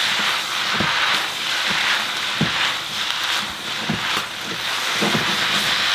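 Carrots and onions sizzling in hot oil in a frying pan as they are stir-fried, with irregular scrapes and knocks of the stirring utensil against the pan.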